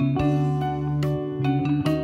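Background music: an instrumental tune of short, changing notes over a sustained bass.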